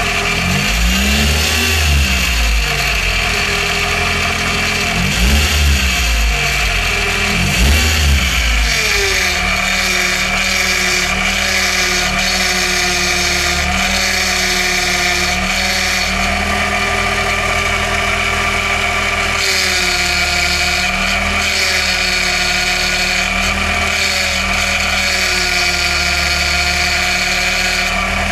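Fifth-generation Honda Prelude's power steering pump whining over the running engine, with air in the power steering system while it is being bled. For the first eight seconds or so the sound swells and wavers several times, then settles into a steady whine.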